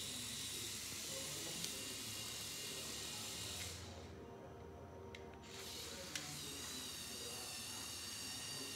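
Electric motors and gearing of a LEGO Technic 6x6 All Terrain Tow Truck whining as it drives. The steady high whine cuts out for about two seconds around the middle and then starts again, and there are two sharp clicks, one a little under two seconds in and one about six seconds in.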